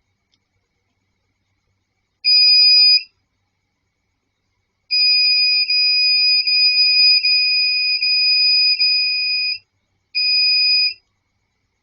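Electronic buzzer tone, steady and high-pitched: a short beep, a long unbroken tone of about five seconds, then another short beep.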